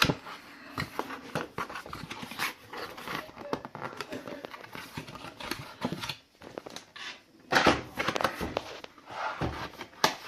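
Cardboard and plastic packaging rustling and scraping as a keyboard is pulled out of its box, with a louder flurry of handling about eight seconds in.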